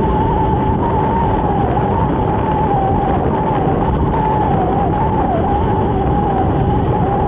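Motorcycle ride heard through a helmet-mounted camera: a steady low rumble of wind and engine, with a thin whistling tone that wavers slightly in pitch.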